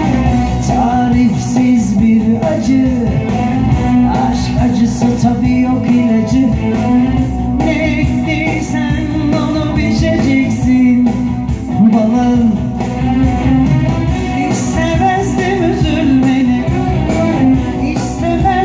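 Loud live band music played on electronic keyboards, with a man singing into a microphone.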